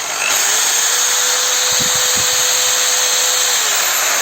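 Black & Decker 550 W corded hammer drill running free with no load, its trigger squeezed for variable speed. It speeds up to full speed just after the start, runs steadily, then is released and begins to wind down near the end.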